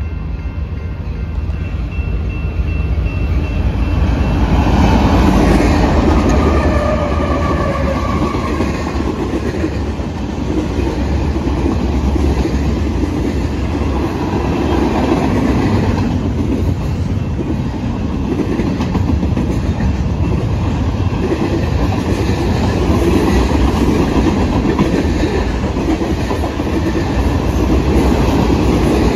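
Freight train passing close by: the locomotives go by about five seconds in with a tone that drops in pitch, then a steady rumble and clatter of freight-car wheels over the rails as boxcars, tank cars, double-stack container cars and an autorack roll past.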